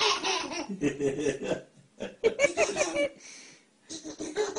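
A baby laughing in repeated short bursts, with an adult chuckling along.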